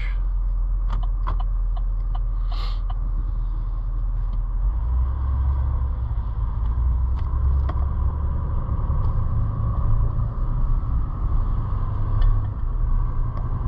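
Car being driven, heard from inside the cabin: a steady low engine and road rumble with tyre noise, the rumble growing heavier about five seconds in.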